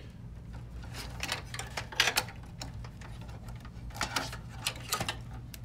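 Power supply cables and their plastic connectors rattling and clicking against the sheet-metal chassis of a desktop PC as they are pulled loose and lifted out, over a low steady hum. The loudest clatter comes about two seconds in, with a few more clicks near the end.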